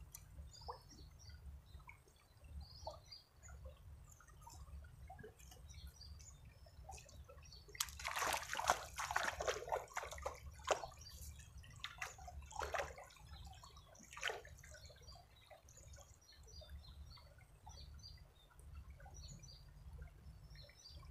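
Shallow, clear river water trickling and flowing over a stony bed, faint and steady, with a few seconds of louder, closer sloshing and splashing about eight seconds in.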